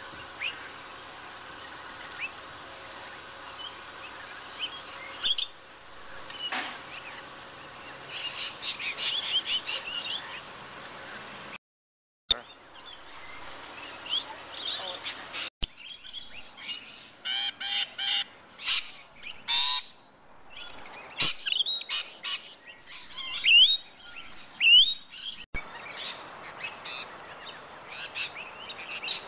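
A flock of rainbow lorikeets calling: many shrill chirps and screeches in quick overlapping runs, with a brief break in the sound about twelve seconds in.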